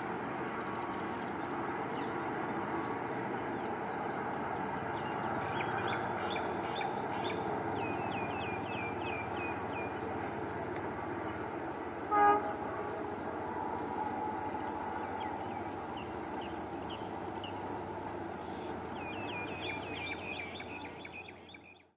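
Steady rumble of a passenger train hauled by an EMD WDP4 diesel-electric locomotive as it draws away, with a brief loud toot about twelve seconds in. Birds chirp in quick runs over it, and the sound fades out at the very end.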